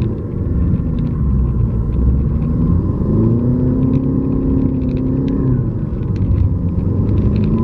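Jeep Liberty CRD's 2.8-litre four-cylinder turbodiesel, heard from inside the cabin, revving up and easing back down repeatedly in four-low while the vehicle is stuck in hard-packed frozen snow. The engine note climbs about three seconds in, holds for a couple of seconds, drops, then climbs again near the end, over a steady high whine.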